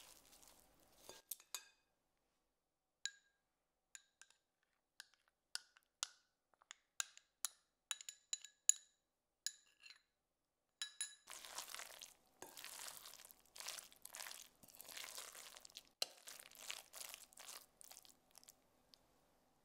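A metal spoon clinking against glass bowls in a string of separate, briefly ringing taps as a thick paste is scraped off it. From about eleven seconds in, continuous stirring and scraping as wet shredded zucchini batter is mixed in a glass bowl.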